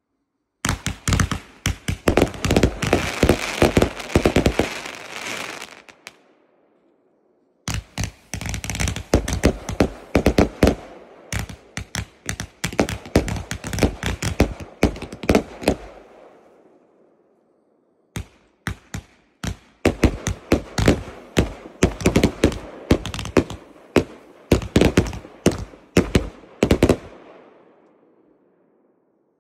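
Firework cake (multi-shot battery) firing shot after shot in rapid volleys, with crackling bursts. It goes in three runs of several seconds each, separated by pauses of a second or two.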